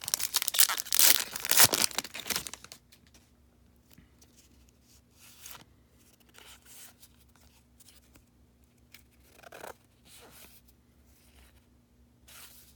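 A foil baseball card pack wrapper torn open in one loud ripping rasp lasting a couple of seconds, followed by a few faint rustles of the cards being handled.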